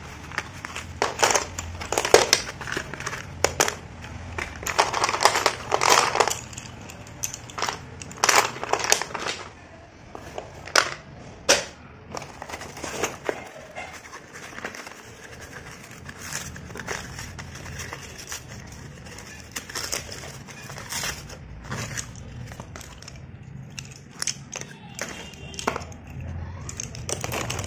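Slate pencils clicking and clattering against one another as they are handled and shifted in a paper packet, with rustling of the thin paper packaging. The clicks come thick and loud over the first dozen seconds, then turn sparser and quieter.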